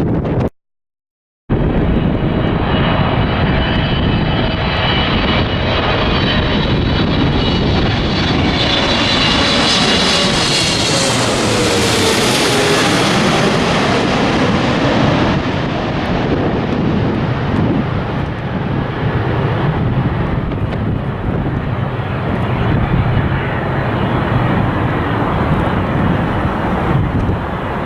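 Jet airliner passing close by, its engine noise and high whine swelling to a peak about twelve seconds in, with tones falling in pitch as it goes past, then a lingering low rumble as it moves away. Wind buffets the microphone.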